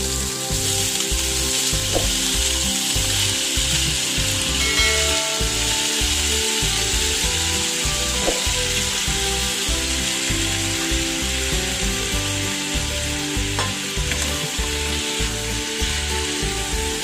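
Chicken pieces and chopped garlic sizzling steadily as they pan-fry in oil in a nonstick pan, stirred and turned with a spatula. A low, regular beat of background music runs underneath.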